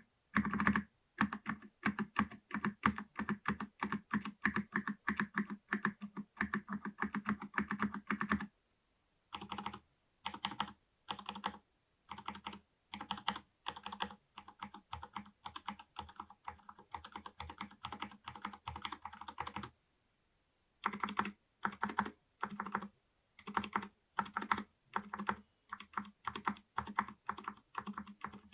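Typing on a mechanical keyboard with Cherry MX Red linear switches: fast runs of clacky keystrokes, broken by short pauses, the longest about a second long around two-thirds of the way through.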